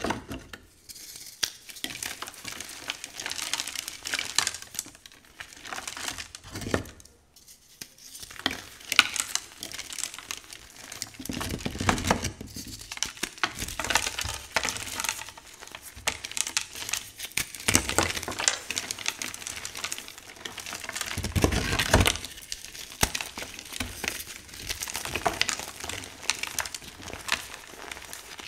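Hands crushing and crumbling powder-coated reformed gym chalk: a dense, crackling crunch as the blocks break down into soft powder. Two heavier, deeper crunches come about twelve seconds in and again about twenty-two seconds in.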